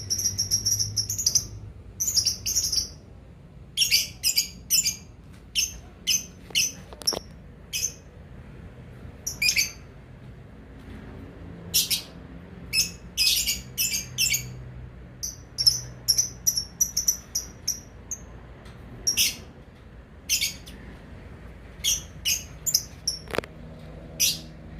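Lovebirds chirping in short, sharp, high-pitched calls that come in quick clusters, with a rapid unbroken chatter at the start.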